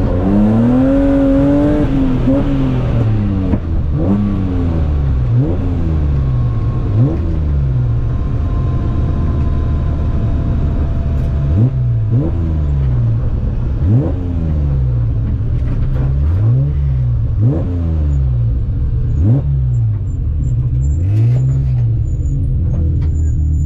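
Inside the cabin of a BMW Compact M3 rally car at stage pace: its straight-six engine climbs in pitch and drops back over and over as it accelerates and changes gear, with several sharp, quick rises in revs. The note runs steadier near the end.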